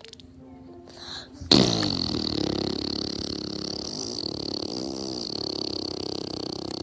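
A long, drawn-out fart sound that starts suddenly about a second and a half in and runs for about five seconds, its pitch wavering, after a quieter, scattered stretch. A steady high-pitched background hiss runs underneath.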